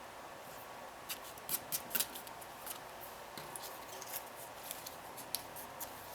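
Cardstock pieces being handled and pressed into place: a scatter of light, sharp paper clicks and rustles, busiest about a second in, then sparser.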